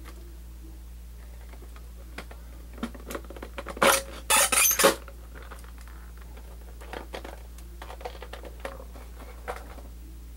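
Hard plastic clicks and clatter as a tape reel is worked out of an opened VHS cassette shell, with a loud rattling scrape about four seconds in and lighter clicks later.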